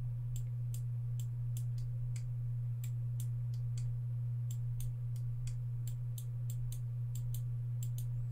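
Computer mouse clicks, irregular, about two or three a second, over a steady low hum.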